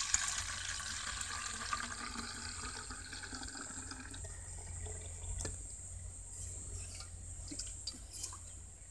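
A kerosene and crushed naphthalene-ball mixture is poured from an aluminium pot into a plastic spray bottle. The liquid runs steadily for the first few seconds, then thins to a weaker trickle and drips.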